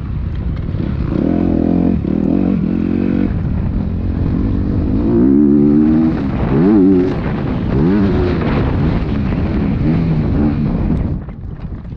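Motocross dirt bike engine revving hard as the rider works the throttle around a dirt track, its pitch climbing and falling several times. The throttle eases off near the end and the engine drops back.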